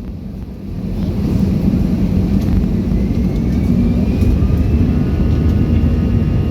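Airbus A320-214 cabin noise with the CFM56 engines' rumble swelling over the first couple of seconds and then holding loud. A faint whine rises slowly in pitch from about halfway, the sound of the engines spooling up, as on a go-around.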